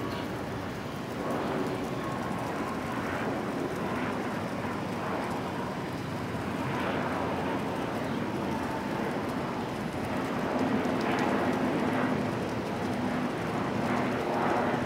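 Outdoor city ambience: a steady wash of distant traffic noise that swells and fades every second or two.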